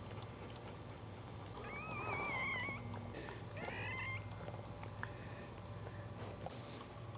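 Newborn Cairn Terrier puppy crying: two high, wavering squeals, the first about a second and a half in and the second, shorter and rising, about three and a half seconds in.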